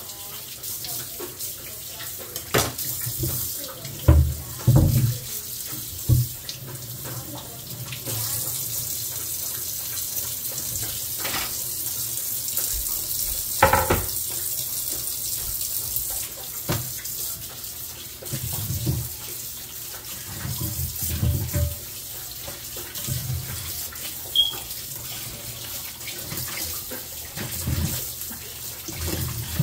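Kitchen faucet running steadily into the sink, with water splashing over a wooden cutting board, onto the bare sink floor in the middle, and over squash pieces in a metal bowl near the end. Low thumps and a sharp knock come from items being handled in the sink.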